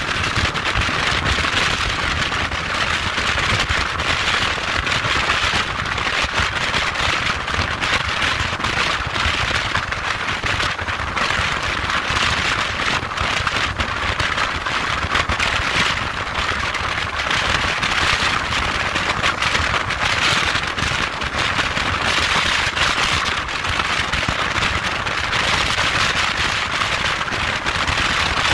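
Steady rushing wind and road noise from a motorcycle at highway speed, heard on a camera mounted on the bike, with the engine and tyres rumbling low underneath.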